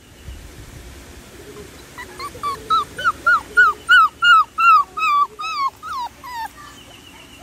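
Golden retriever puppy whining: a run of about a dozen short, high whimpers, each rising then falling, about three a second, starting about two seconds in and stopping shortly before the end.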